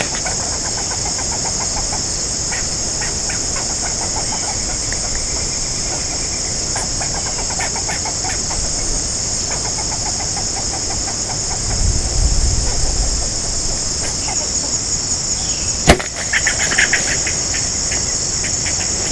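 Squirrels barking in short runs of rapid clucking chatter, over a steady high drone of insects. A single sharp snap, the loudest sound, comes about three seconds before the end, followed by more chatter.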